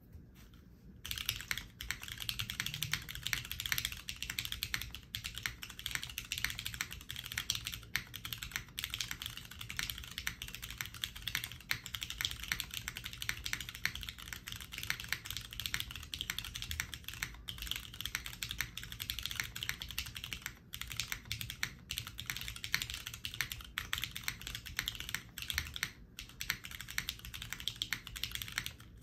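Steady, continuous typing on a SINGAKBD Kohaku R2 custom mechanical keyboard fitted with Cherry Nixie switches, GMK Nord keycaps and an aluminium leaf-spring plate without foam: a dense run of keystroke clacks that starts about a second in.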